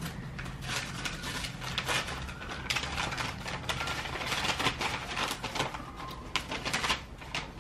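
Wrapping paper crinkling and tearing as a paper-wrapped package is opened by hand, with tape being picked and pulled off: irregular rustling crackles, busiest in the middle.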